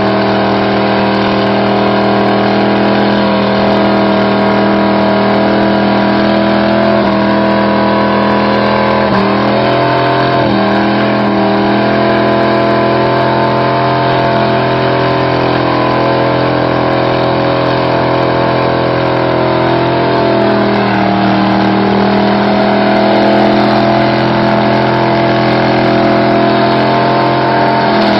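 Chevrolet C10 pickup's engine held at high revs through a burnout, rear tires spinning on the pavement. The revs dip briefly about nine seconds in and again around twenty seconds, then start to fall at the very end.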